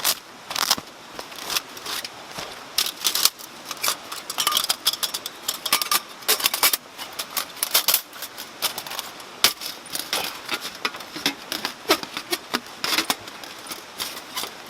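Irregular sharp clicks and snaps, often several a second, over the steady rushing of a mountain stream.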